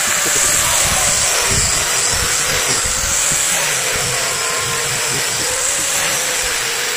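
Electric angle grinder running steadily at full speed, its disc held against an air rifle's steel barrel to grind off rust.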